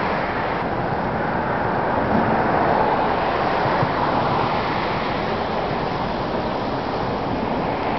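Steady road traffic noise from cars passing, swelling a little about two to three seconds in as a car goes by.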